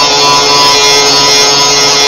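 Power grinder running steadily against the car body's sheet steel, a loud continuous grinding with a steady motor whine.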